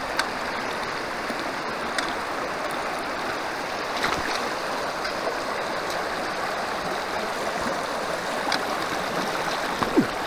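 Mountain creek running steadily, an even rush of water, with a few light clicks about every couple of seconds.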